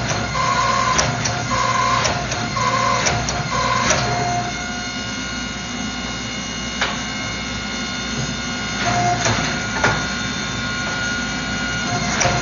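A steady machine hum with several fixed tones, the kind of sound workshop machinery makes while running. For the first four seconds a repeating pulsed tone sounds over the hum, and a few sharp clicks come through later.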